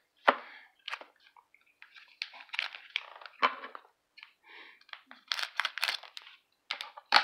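Hockey trading cards and their plastic repack wrapping being handled: irregular crinkles and crackles with a few sharp clicks, the loudest about a third of a second in and near the end.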